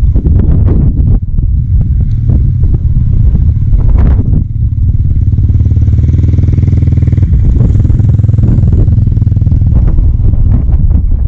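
Boat engine running steadily under way. Wind buffets the microphone, with scattered knocks and clatter in the first few seconds and again near the end.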